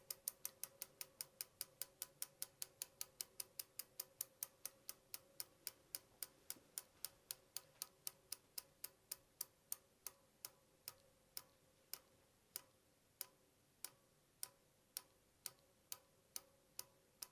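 Bicycle wheel spinning down with a sharp, regular ticking. The ticks slow steadily from about five a second to about two a second as the wheel loses speed.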